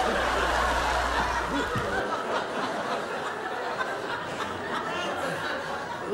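Studio audience laughing: a continuous spread of laughter and chuckles from many people.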